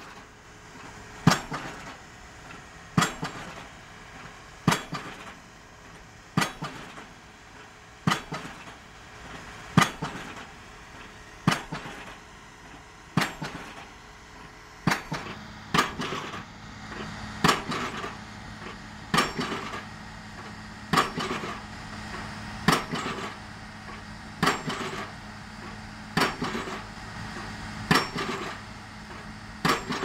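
A 7-tonne hydraulic pile hammer striking the top of a PHC D500 prestressed concrete pile, one sharp blow about every 1.7 seconds, as the pile is driven into the ground. A steady low hum joins about halfway through.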